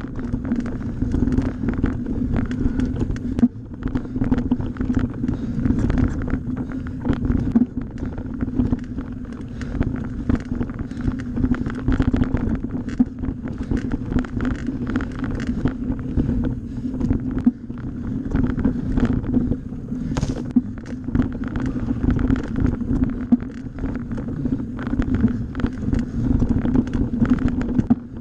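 Mountain bike riding over a dirt forest trail, heard from a bike- or rider-mounted action camera: a steady hum of tyres on the dirt, dense rattles and knocks from bumps, and wind buffeting the microphone.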